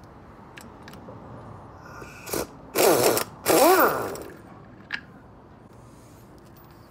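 Pneumatic impact wrench run in two short bursts, the second whining up and back down in pitch, spinning off the nut on the rear shock absorber's top mount. A small click follows about a second later.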